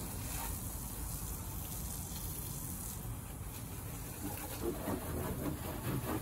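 Steady rush of running or spraying water, with a low rumble underneath.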